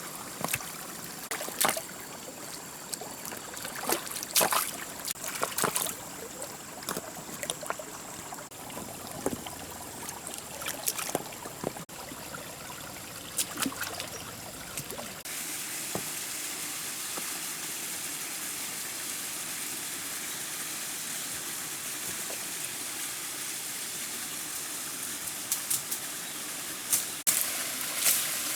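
Steady rush of running water with scattered sharp clicks and knocks. About halfway through, the sound changes abruptly to a steadier, louder hiss.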